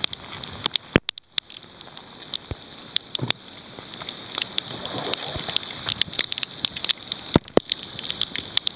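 Heavy rain falling steadily, with many sharp taps of raindrops striking close to the microphone.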